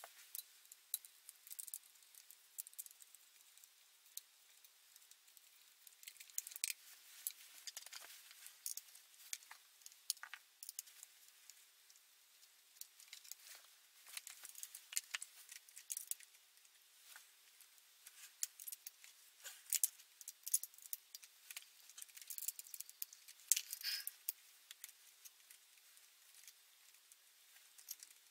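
Light, irregular metallic clicks and clinks of hand tools and small bolts as the engine casing of a petrol multi tool is unbolted, busier in the second half.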